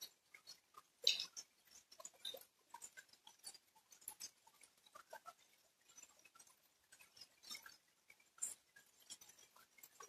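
Rain: irregular drips and taps of individual drops landing close by, with no steady rain hiss; the loudest tap comes about a second in.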